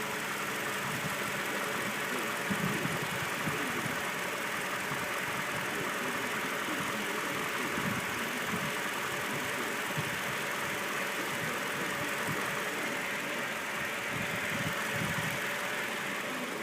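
2013 Scion tC's four-cylinder engine idling steadily in neutral with the clutch let out, carrying the noise the owner blames on the transmission.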